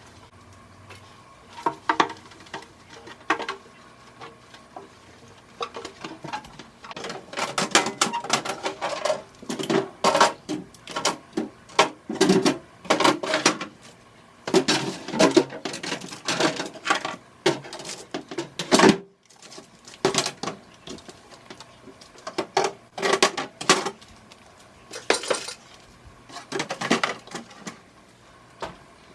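Dishes, containers and cutlery clinking and clattering in irregular clusters as they are handled.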